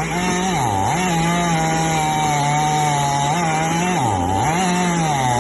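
Chainsaw running under load as it cuts into a tree trunk, its engine note dipping repeatedly as the chain bogs in the wood and picking back up, most deeply about a second in and again around four seconds in.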